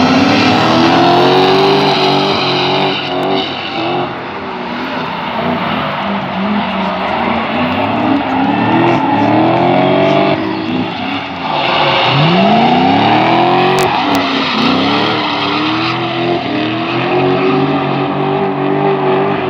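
Two drift cars in a tandem battle, engines revving up and down over and over as they slide, with tyres screeching on the asphalt. There is one steep rise in revs about two thirds of the way through.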